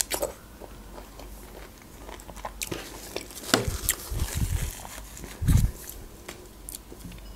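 Close-miked mouth sounds of a person biting and chewing juicy grapefruit: many small wet clicks and smacks, with a few dull low thuds a little past halfway, the loudest sounds.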